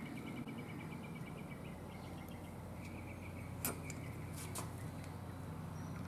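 A few light plastic clicks, the sharpest about halfway through, as the plastic air-filter backing plate with its primer bulb is fitted back onto a Briggs & Stratton mower engine's carburetor. Under it, a faint steady hum and rapid high chirping.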